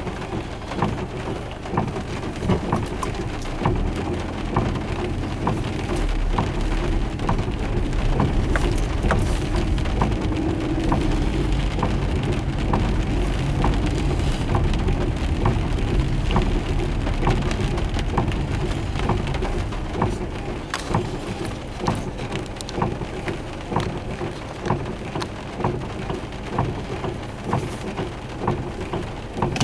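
Heavy thunderstorm rain falling, with many sharp drops ticking on a hard surface. A deep low rumble swells through the middle and then eases off.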